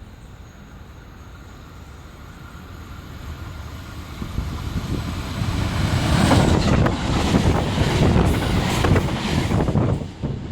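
A four-car JR West electric train approaching and passing close by at speed, its noise building steadily for several seconds and then becoming loud with a dense run of clattering from the wheels on the rails. Wind buffets the microphone throughout.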